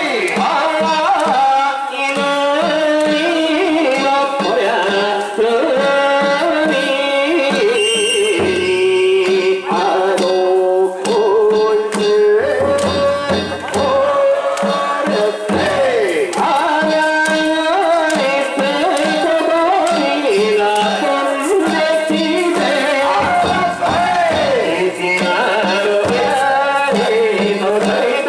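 Danjiri festival music (danjiri-bayashi): drums and percussion with a wavering, sliding melody line over them, playing steadily.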